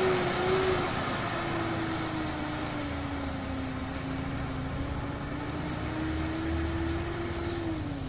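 Bus engine running as the bus drives away, with a steady whine that sags in pitch after about a second and climbs back, then falls off near the end.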